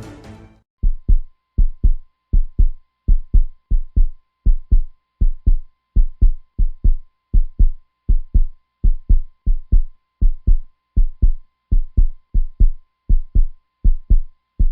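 Heartbeat sound: a steady lub-dub of paired low thumps, about 80 beats a minute, starting as music fades out within the first second.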